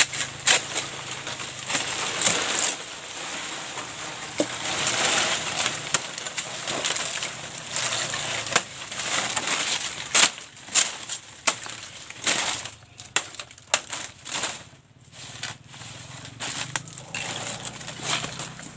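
Salak palm fronds being hacked with a sickle and torn away from the clump: dry, crackling rustle of leaves and spiny stems with many irregular sharp snaps and chops.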